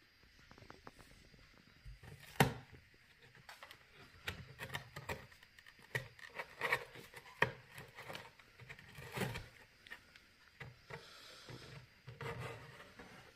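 Cat's claws scratching and scraping at a cardboard box, a run of irregular scrapes and taps with one sharp knock about two seconds in.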